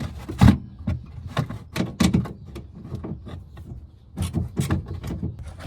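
An 8 mm socket wrench loosening the screws on a car's rear trim, heard as a string of irregular sharp clicks and knocks of metal tool against screw and plastic.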